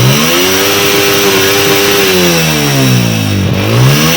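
Honda CG 125's air-cooled single-cylinder four-stroke engine being revved by hand. The revs climb at the start, hold high, drop back, then climb again near the end. It takes full throttle evenly without misfiring, now that the half-open choke has been set right.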